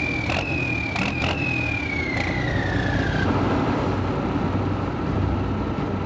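Steam whistling from a pipe, a high tone that slowly falls in pitch and fades out about three seconds in, over a steady low engine rumble with a few knocks.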